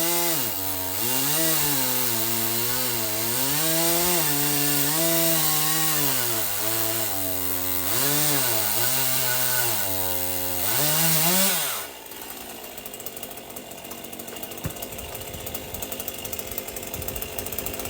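Stihl MS 201 C-M two-stroke chainsaw cutting through a large Douglas fir round at high revs. The engine pitch sags and recovers again and again as the chain bites into the wood. About twelve seconds in the throttle is released, the pitch falls sharply, and the saw drops to a quieter, rattling idle.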